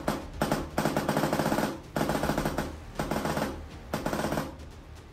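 A tuned airsoft AEG (M4-style electric gun) firing a couple of quick single shots, then four short full-auto bursts at a fast, even rate. Its gearbox is tuned for a crisp, quiet shot that is claimed to sound just like an HPA gun.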